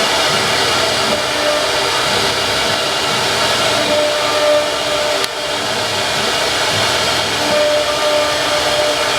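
Wood CNC router's spindle motor running at speed, a steady loud whine with a noisy, airy hiss, with a brief click about five seconds in.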